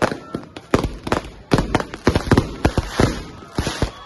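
Fireworks and firecrackers going off in rapid, irregular bangs and pops, with a denser burst of crackling near the end.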